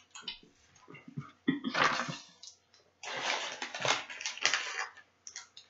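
Plastic candy wrapper crinkling and rustling in the hands, in irregular bursts: one about a second and a half in and a longer one from about three seconds in.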